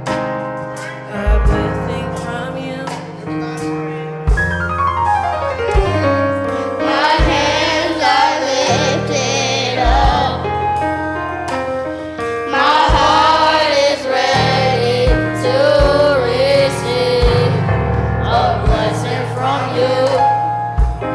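Gospel music from a church band, with keyboard, bass and a steady drum beat; a quick falling run of notes comes about four seconds in, and singing with a wavering pitch enters about seven seconds in and returns after a short gap.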